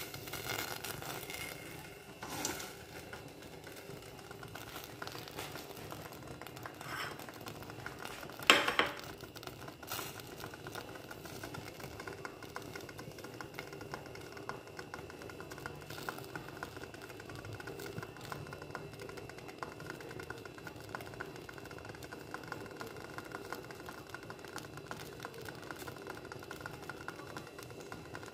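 Hands handling leafy greens and dropping them into a steel pot of water: faint rustling and a few light knocks against the pot, the sharpest about eight and a half seconds in, over a steady low hum.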